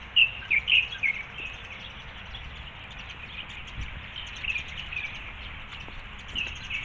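Birds chirping: a quick run of short, high chirps in the first second and a half, then scattered calls later, over a steady background hiss.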